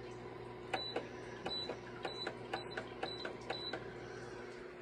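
Ceramic space heater's control panel beeping as its buttons are pressed: a run of about seven short, high beeps, each with a click, over a steady low hum.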